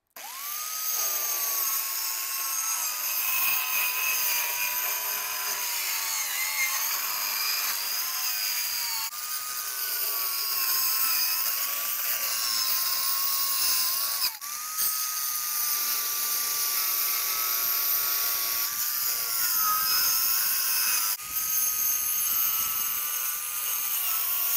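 Compact corded circular saw starting up and ripping a taper along a plywood board, its motor whine sagging in pitch as the blade bites. It breaks off briefly a couple of times before cutting on.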